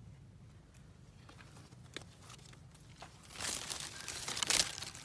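Leaves of a lộc vừng tree (Barringtonia acutangula) brushing and rustling against the microphone as the camera is pushed through the foliage. A crinkly rustle starts about three seconds in, after a quiet stretch.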